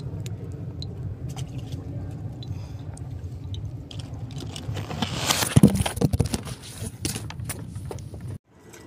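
Steady low rumble of a boat's engine running. About five seconds in, a loud, brief burst of noise rises over it. The sound cuts off suddenly near the end.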